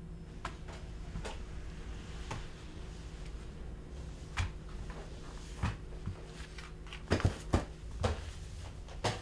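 A man crawling on all fours across a floor: irregular knocks and thumps of hands and knees, loudest in a quick cluster about seven seconds in, over a low steady hum.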